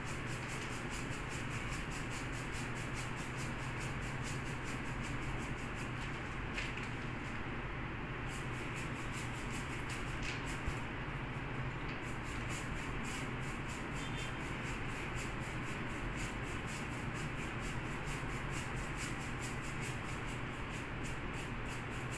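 A putty knife scraping across a wall in quick, evenly repeated strokes, with a couple of short pauses, over a steady low hum.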